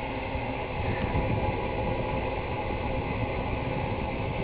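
An eBay 'electric supercharger', really a marine bilge blower fitted to the car's intake with a cone air filter, running with a steady whir over the running engine. It gives no boost, only a freer intake.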